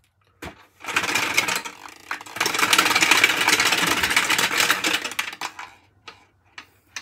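Addict-A-Ball plastic 3D maze sphere being shaken and turned in the hands, the small ball inside rattling fast against the plastic track and walls. The clatter starts about a second in, is at its busiest in the middle, and thins to a few loose clicks near the end.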